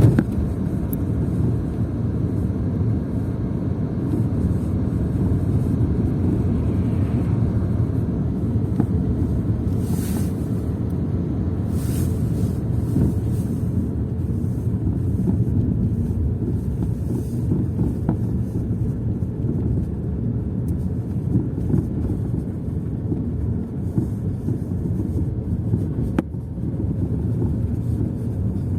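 VW Polo Sedan on the move: steady low road and tyre rumble with a few faint, scattered knocks from its original VAG shock-absorber struts. The knocking is a sign of struts gone bad by 58,000 km.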